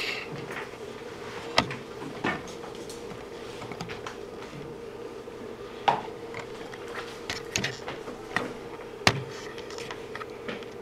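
Dry-erase marker tapping and scraping on a whiteboard in short strokes, with four sharp clicks standing out, over a steady hum.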